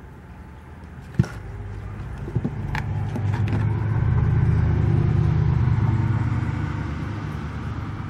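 A vehicle passing outside: a low engine rumble that swells over a couple of seconds, is loudest around the middle, then fades away. A single sharp tap about a second in.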